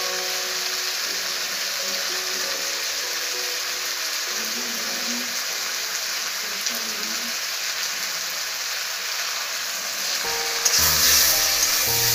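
Tomato-onion masala frying in a kadhai, sizzling steadily. Near the end the sizzle grows brighter and louder as the masala is stirred, and background music comes in louder.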